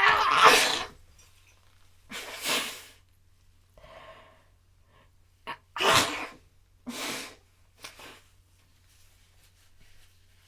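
A person sneezing over and over in a sneezing fit. The first sneeze, right at the start, is the loudest, and several more follow over the next eight seconds with short quiet gaps between them.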